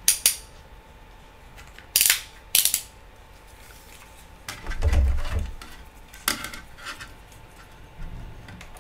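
Handling clatter as a Fluke digital multimeter and its test probes are brought onto the metal amplifier chassis: a few sharp clicks and knocks, with a duller thump about five seconds in.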